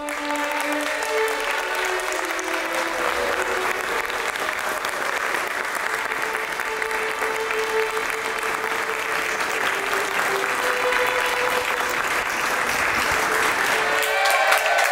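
A crowd applauding steadily, many hands clapping at once, growing a little louder toward the end.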